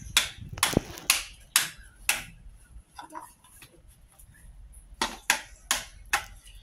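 Plastic toy kitchenware knocked and tapped against a toy cutting board and a wooden bench: a run of sharp knocks about two a second, a quieter stretch, then four more knocks near the end.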